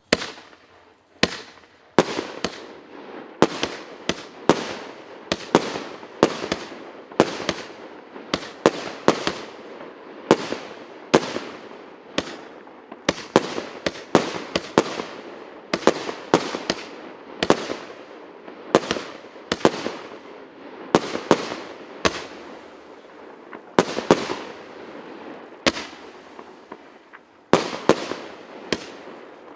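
Multi-shot consumer fireworks cake with 190 shots in 0.8- and 1.25-inch tubes, firing shot after shot. There are about one to two sharp bangs a second, each trailing off briefly, with a short lull near the end before the shots resume.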